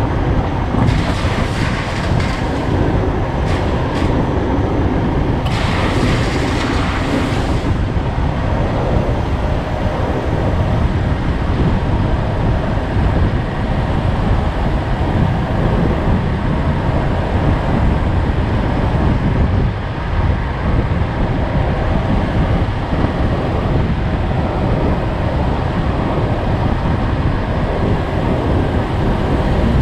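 Steady rumble of a road vehicle on the move, with wind and road noise heavy in the low end. Two brief hissing swells come near the start.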